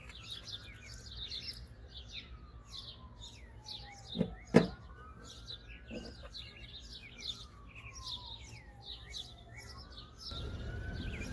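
Small birds chirping rapidly and continuously, with a faint tone slowly rising and falling beneath them. A couple of sharp clicks come close together about four and a half seconds in, and a softer one near six seconds.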